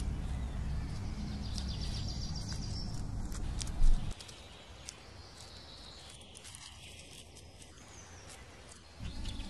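Faint clicks and scratches of a treecreeper's claws on bark and the long strip of wood it is working into its nest hollow. They sit over a low outdoor rumble, which ends with a brief thump about four seconds in and leaves the rest quieter.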